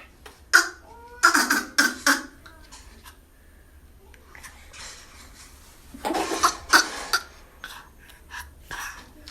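Nine-month-old baby making raspy, cough-like noises in short bursts, a cluster about a second in and another about six seconds in, with fainter ones after.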